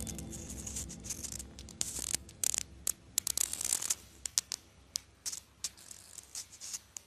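Irregular rustling and crackling with sharp little clicks, uneven in loudness: close handling noise as dry flowers and material are worked by hand.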